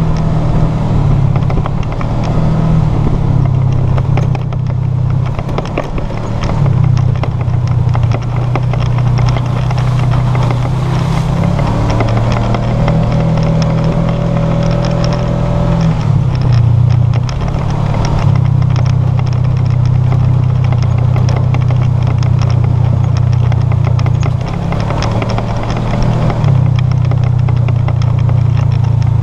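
Side-by-side UTV engine running under way, its note shifting up and down several times, with frequent rattling and knocking over it.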